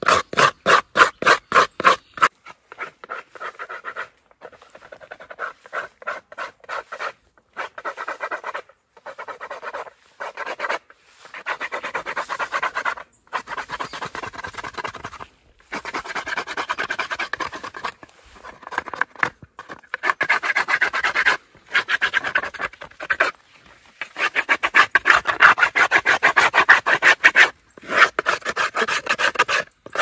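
Scraping the inside of a halved calabash gourd shell, cleaning the last pulp off the wall to make a bowl: a quick run of short rasping strokes, about four a second, then longer scraping passages with short pauses between them.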